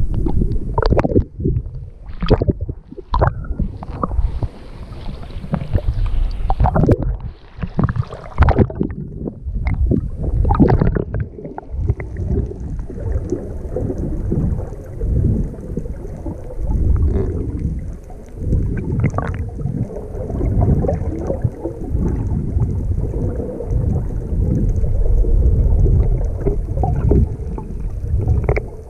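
Muffled underwater sound picked up by a camera in its waterproof housing while submerged: a low rumble of water moving against the housing. Irregular gurgles and knocks come through in the first half, then it settles into a steadier rumble.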